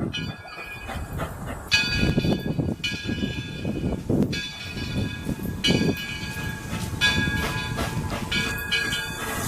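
Bell of the 4-4-0 steam locomotive Edison ringing steadily as the train arrives, a fresh stroke about every second and a half, over the low rumble of the moving train.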